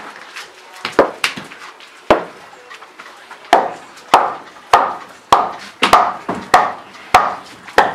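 Hammer striking wooden timber: a few scattered blows, then steady strikes a little under twice a second from about halfway through, each with a short wooden ring.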